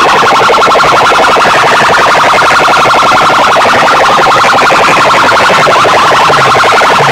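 Very loud, rapidly pulsing electronic siren-like tones blasting from banks of aluminium horn loudspeakers on a DJ sound rig.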